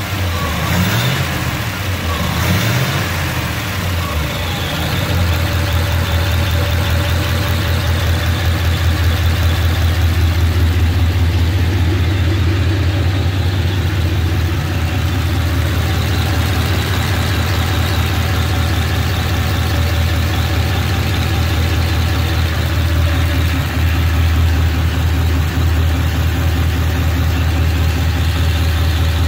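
1936 Ford 21-stud flathead V8 running. Its throttle is blipped a few times in the first few seconds, then it settles into a steady idle.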